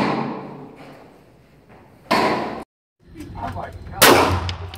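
A single sharp shot from a Smith & Wesson Bodyguard .380 ACP pocket pistol about four seconds in, echoing briefly in an indoor shooting range. Before it, two muffled bangs about two seconds apart, one right at the start and one about two seconds in.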